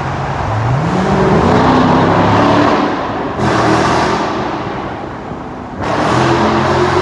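Dodge Scat Pack's V8 accelerating hard, its note climbing about half a second in. It eases off and then surges back louder twice, about three and a half and six seconds in.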